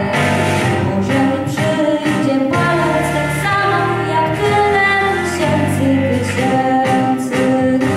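A young girl singing solo into a handheld microphone, holding long notes, over instrumental accompaniment with a steady low bass line.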